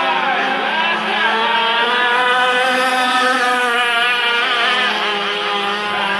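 Several radio-controlled racing powerboats running at high revs across a lake, their engine notes overlapping and rising and falling in pitch as the boats speed up and ease off.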